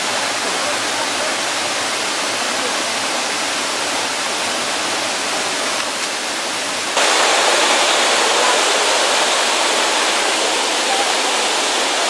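Rushing water of a mountain waterfall, a steady even rush that jumps abruptly louder and brighter about seven seconds in.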